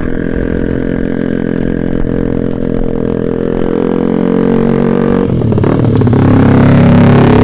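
Small motorcycle engines running: a steady idle, then about five seconds in a deeper, louder engine note comes in and builds.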